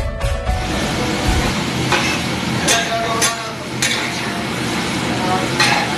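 Chopped tomatoes and capsicum frying on a large flat metal griddle (tawa), stirred and scraped with a metal spatula, with several sharp clanks of the spatula on the griddle.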